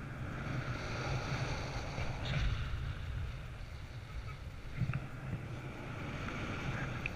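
Wind noise from the airflow of a paraglider in flight, buffeting the microphone with an uneven low rumble and a steady rush.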